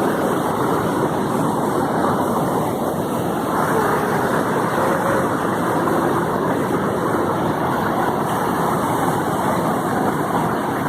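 Rain-swollen river rapids and waterfall rushing in flood, a steady, loud, even wash of whitewater noise.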